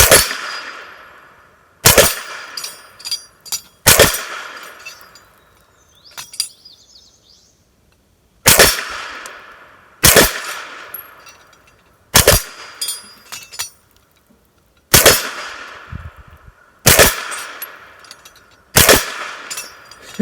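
Nine suppressed 9mm shots from a PSA AKV carbine fitted with a SilencerCo Octane 45 HD suppressor, mostly about two seconds apart with a longer gap near the middle. Most shots are followed by the clang and rattle of steel spinner plates being hit.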